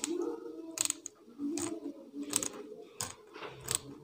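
Sharp metallic clicks from handling a ratcheting screwdriver fitted with a metal extension rod, about six clicks under a second apart.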